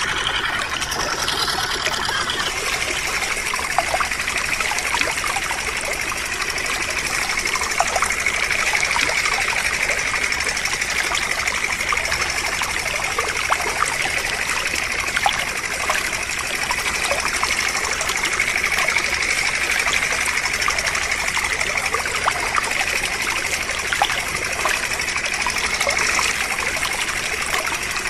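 Thin stream of water from a miniature pump's hose trickling and splashing onto sand-covered toy vehicles, steady throughout with small droplet ticks.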